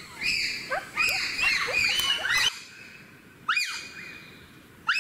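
Wild bonobos giving alarm calls: many high-pitched calls overlapping, each rising and then falling in pitch. They break off abruptly about halfway through, after which single calls of the same shape come about every second and a half.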